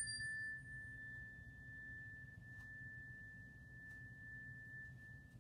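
Handheld meditation chime, struck just before, ringing on as one clear high tone that fades slowly; its brighter overtones die away within about a second. The bell marks the end of a mindful-walking exercise.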